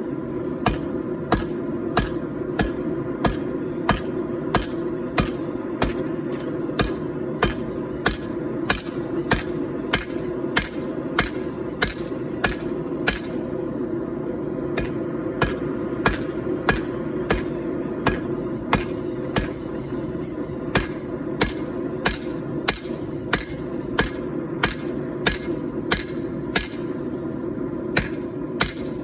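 Hand hammer striking a hot 4140 steel billet, drawing it out on the anvil in an even rhythm of about one and a half blows a second. A steady roar runs underneath.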